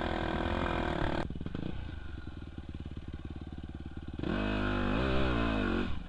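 Dirt bike engine under the rider: steady revs for about a second, then low, pulsing revs for about three seconds, then revving up and down as it climbs a steep rutted hill, easing off just before the end.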